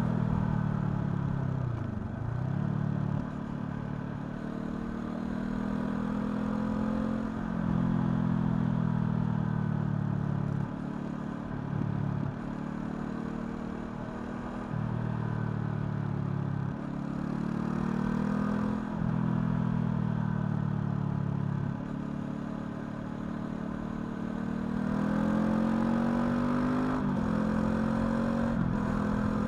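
Honda CL500's parallel-twin engine under way, its pitch rising under throttle and dropping at each gear change or lift-off, over and over, with the loudness stepping up and down every few seconds.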